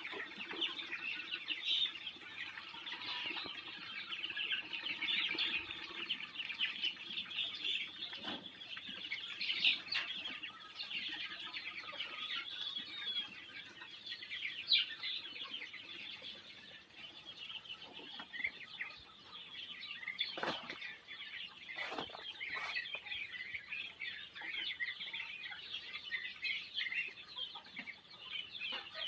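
A flock of young Muscovy ducklings peeping continuously in a dense, high chatter of many overlapping calls. A few sharp knocks stand out about two-thirds of the way through.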